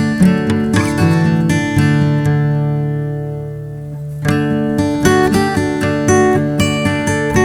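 Instrumental music of plucked strings, picked note by note. About two seconds in a chord is left to ring and slowly fade, and the picking starts again just after four seconds.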